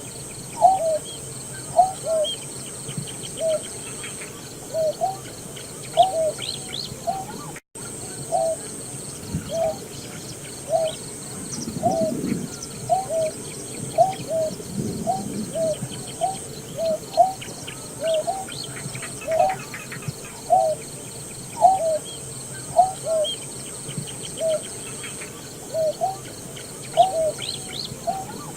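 Greater painted-snipe calling: a long series of short, low hooting notes, about one a second. The sound drops out completely for a moment about eight seconds in.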